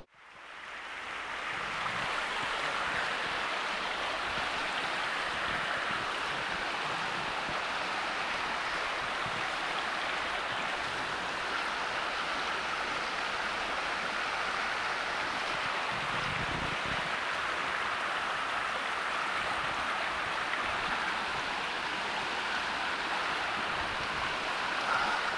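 Small mountain creek rushing over rocks in a shallow riffle, a steady, even water rush that fades in over the first couple of seconds.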